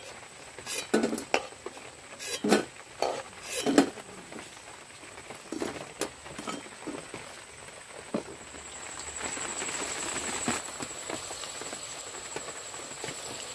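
A metal spatula clinks and scrapes against an aluminium karahi and a steel plate as fried pakoras are lifted out of the oil. From about eight seconds in, a steady sizzle of batter frying in hot oil.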